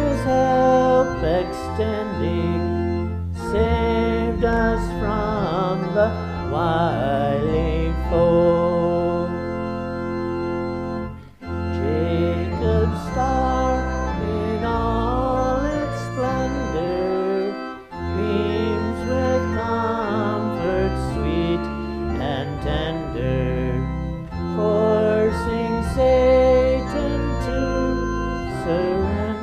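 Church organ accompanying a congregation singing a hymn, held chords with voices over them and brief breaks between phrases.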